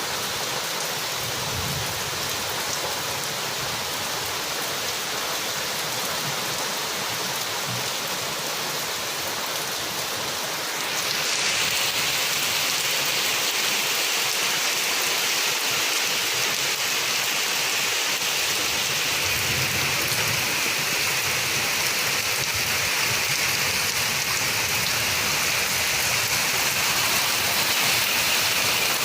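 Steady rain falling, turning suddenly louder and heavier about eleven seconds in.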